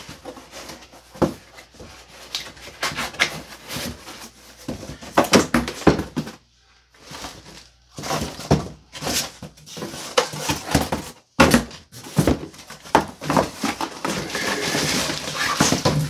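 Cardboard shipping box being handled and its flaps pushed and folded: an irregular run of scrapes, knocks and rustles, with a short lull about six seconds in.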